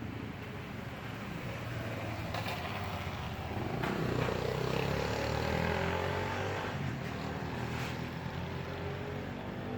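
A passing engine: a steady low hum that swells about four seconds in and fades again.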